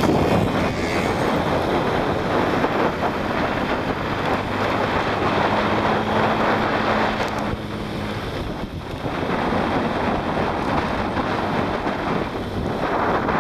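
Wind rushing over the microphone of a moving moped, loud and rising and falling, with small scooter engines humming faintly beneath it.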